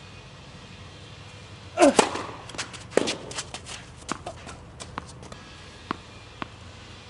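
Tennis ball being struck and bouncing on a court: a loud hit with a short shout about two seconds in, then a quick run of sharp knocks that thin out to a few single ones near the end.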